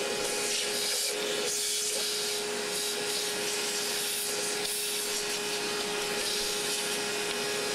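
A motor-driven blower running steadily: an even rush of air with a constant low hum.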